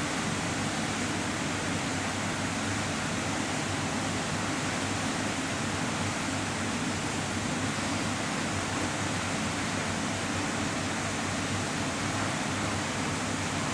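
Steady, even rushing noise with a low hum underneath, unchanging throughout, with no distinct sounds standing out.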